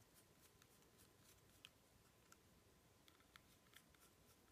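Near silence with faint, scattered small clicks from a small star screwdriver turning the tiny screws of the camera's front lens bumper as they are tightened.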